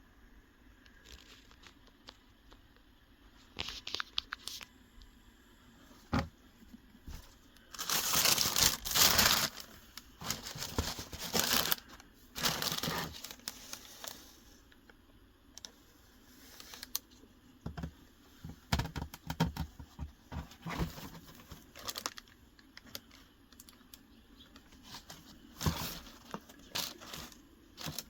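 Paper packing from a shoe box being handled, crinkling and tearing in irregular bursts, loudest in two long rustling stretches about a third of the way in, with scattered lighter crackles and taps around them.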